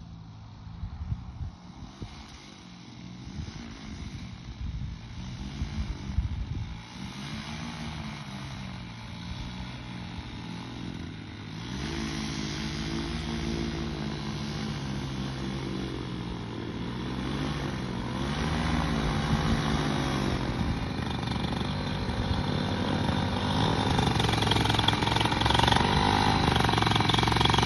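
Flexwing microlight trike's engine and pusher propeller running while it taxis, its pitch rising and falling again and again as the throttle is worked. It grows steadily louder as the trike comes closer.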